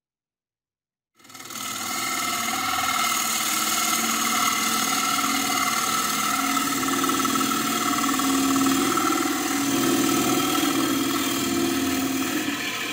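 Wood lathe running with a bowl gouge cutting inside a spinning walnut bowl: a steady motor whine under the rough scraping of the cut. It starts suddenly about a second in, after silence.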